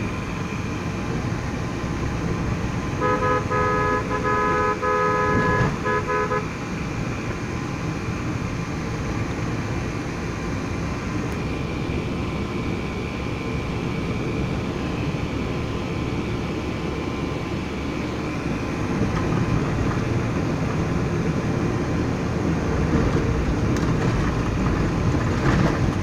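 Steady engine and road noise heard from inside a moving vehicle. A few seconds in, a vehicle horn gives a run of short toots lasting about three seconds.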